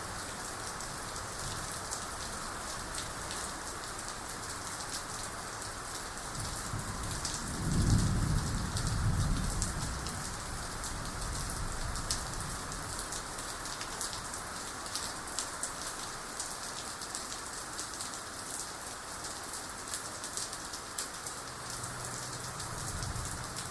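Steady heavy rain falling, with a low rumble of thunder that swells about six seconds in, is loudest around eight seconds, and dies away a few seconds later.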